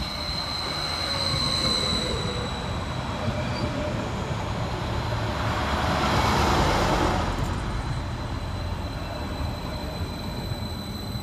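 Transport for Wales Class 231 Stadler FLIRT diesel multiple unit pulling into the station and passing close by, its running rumble loudest around six to seven seconds in. A high steady squeal at the start fades out after about two seconds.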